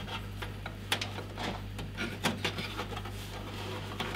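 Hard-drive data cables being handled and pushed into place inside a PC case: scattered small plastic clicks, taps and rustling, over a steady low hum.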